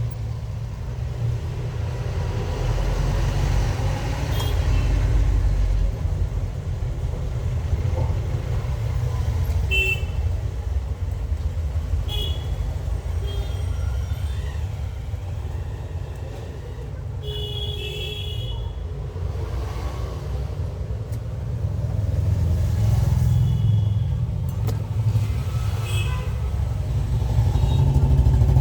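Road traffic rumbling steadily, with several short vehicle horn toots.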